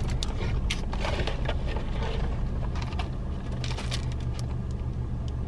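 Steady low hum of an idling car heard inside the cabin, with scattered crinkles and taps from paper burger wrappers and cardboard fast-food boxes being handled.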